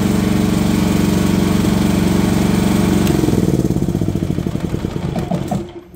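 Philking 4200 inverter generator's engine running steadily, then switched off about three seconds in: a click, and the engine runs down, its beat slowing and falling in pitch until it stops just before the end.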